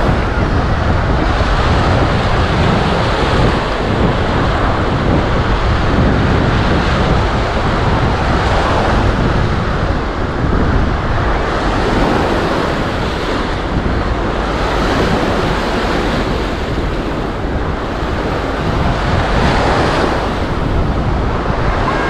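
Sea waves washing onto the beach, the surf rising and falling every few seconds, with wind buffeting the microphone.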